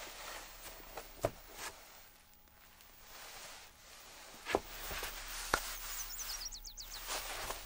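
Quiet outdoor ambience with a few soft, scattered footstep-like taps and rustles. A quick run of five or six short, high, rising chirps comes about six and a half seconds in.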